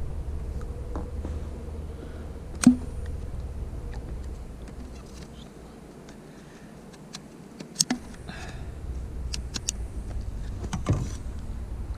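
Scattered sharp knocks and clicks from a long pole being handled hand over hand against an inflatable boat, over a low rumble. The loudest knock comes about two and a half seconds in, a quick pair near eight seconds and another knock near eleven.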